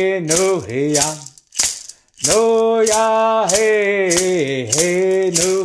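Cherokee Friendship Dance song: a man singing in vocables, each phrase sliding down in pitch, over a hand rattle shaken in a steady beat about twice a second. The singing breaks off briefly about one and a half seconds in while the rattle keeps time.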